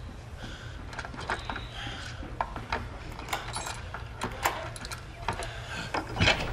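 A series of light clicks and clinks, with a louder knock about six seconds in, over a low steady hum.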